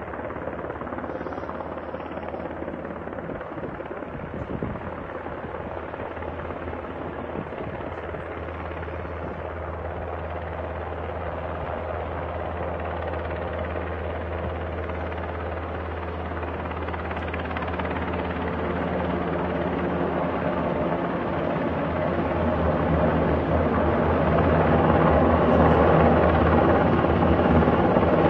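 UH-60 Black Hawk helicopter flying overhead, its rotor and turbine engines making a steady drone that grows louder over the second half as it comes closer.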